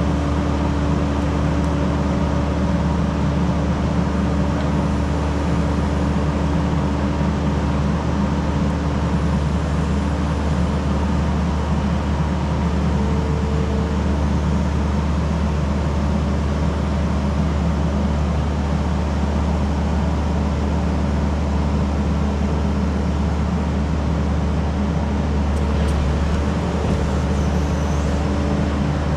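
Diesel engine of a compact tractor or track loader running steadily at constant speed, a loud, even drone with no change in pitch.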